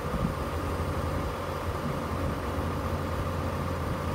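Rollback tow truck's engine idling steadily.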